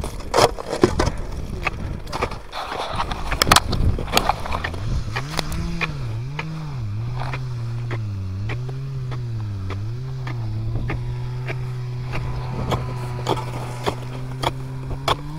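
Ice chunks knocked and scraped with a shovel in a freshly sawn hole in lake ice: several sharp knocks in the first few seconds. From about five seconds in, a steady motor drone wavers up and down in pitch, then holds level.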